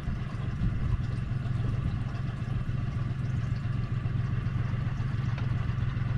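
Engine idling steadily, an even low hum.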